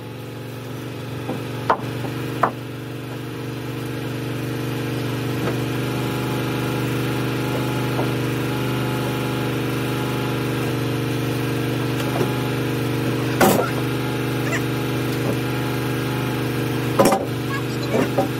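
Engine on a portable bandsaw sawmill running steadily at a constant speed, with a few sharp wooden knocks as sawn timbers are handled and set down, the loudest two in the second half.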